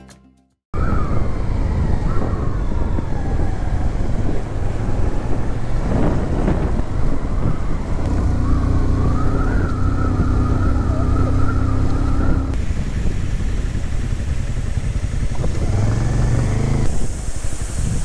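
Bajaj Avenger 160 motorcycle's single-cylinder engine running while the bike is ridden, heard from the handlebars. It starts suddenly just under a second in after a moment of silence, and its sound jumps abruptly twice, near the end and a few seconds before.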